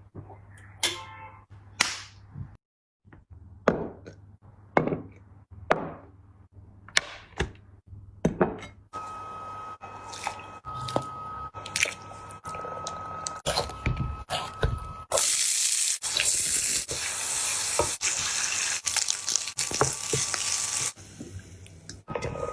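Eating and tableware sounds: a string of sharp clicks, taps and thunks from utensils and dishes, then several seconds of steady hissing, like sizzling or running liquid, loudest about two-thirds of the way in, with a thin steady tone running through parts of it.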